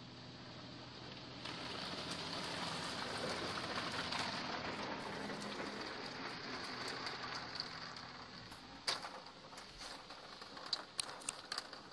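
Water jets of an Oasis Eclipse touch-free car wash spraying over the car, heard from inside the cabin as a hiss that swells and then fades. Near the end come scattered ticks and drips on the car body.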